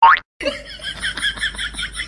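A cartoon boing sound effect sliding sharply up in pitch, then after a brief break a fast run of high squeaky chirps, about six a second.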